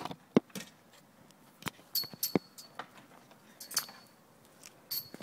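Scattered sharp clicks and clinks of small hard objects being handled, with short high electronic beeps about two seconds in, again near four seconds, and near the end.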